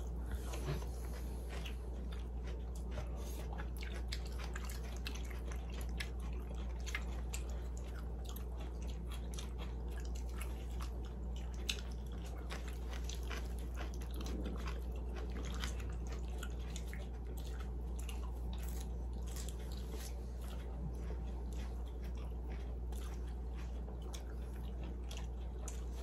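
People eating close to the microphone: chewing, with scattered small clicks and taps of chopsticks against bowls, over a steady low hum.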